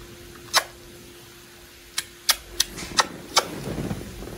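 Six short sharp clicks, most of them bunched between two and three and a half seconds in, over a faint steady hum that fades out partway through. From about the middle there is soft rustling of crib bedding as the baby shifts and crawls on the mattress.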